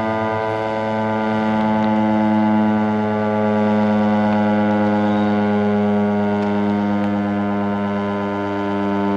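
Federal Signal STH-10A outdoor warning siren sounding its steady alert tone during a test, holding one constant pitch. Its loudness swells and fades slightly.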